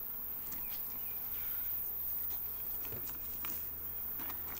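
Honeybees buzzing around an opened hive, with scattered light clicks and knocks of the wooden hive parts and frames being handled.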